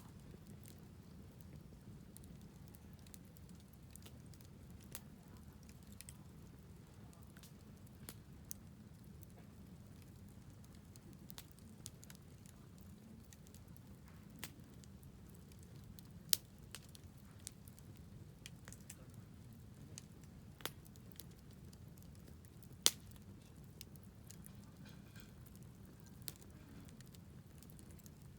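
Wood campfire burning, crackling with scattered sharp pops over a steady low rumble; two pops, about halfway through and near the end, are louder than the rest.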